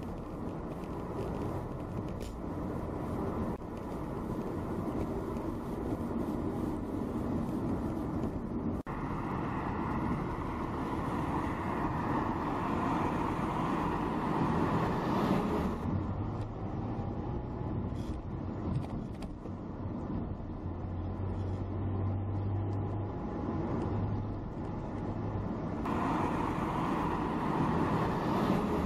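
Car interior ride noise: steady engine and road noise, easing for a stretch in the second half to a low steady hum before picking up again near the end.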